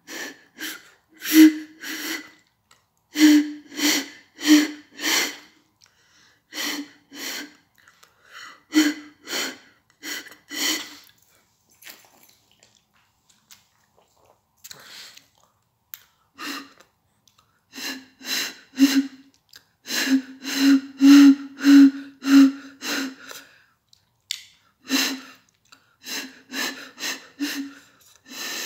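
Short hooting notes blown across the mouth of a brown glass Amstel beer bottle, played in rhythmic groups, with a pause of a few seconds about halfway through. The notes sit slightly lower in pitch in the later stretch.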